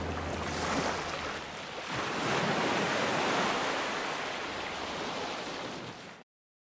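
Ocean surf washing up a sandy beach: the rush of a wave swells about two seconds in, then eases and fades out near the end.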